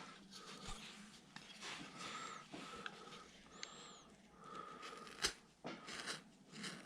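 Faint scraping of a small V-tool gouge cutting a line into a wood carving, with soft close breathing and a sharp click about five seconds in.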